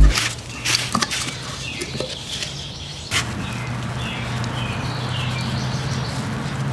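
Short-strand fiberglass filler being mixed on a piece of cardboard: a spreader scraping and tapping irregularly, with one sharp tap about three seconds in. Birds chirp over a steady low hum.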